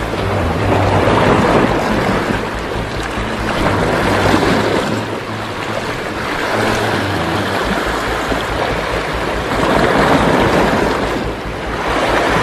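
Sea waves breaking and washing against shoreline rocks, swelling and fading several times.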